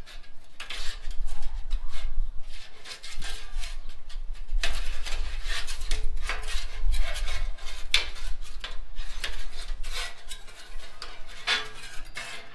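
Metal spatula scraping and sliding across the oiled steel top of a Blackstone griddle in many quick, uneven strokes as the oil is spread out, over a low rumble.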